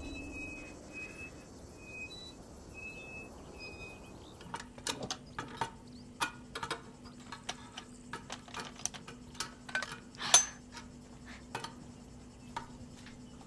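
A row of faint, short high squeaks repeats for the first few seconds. From about four seconds in comes a run of small clinks and knocks of glass and metal being handled, over a faint steady hum.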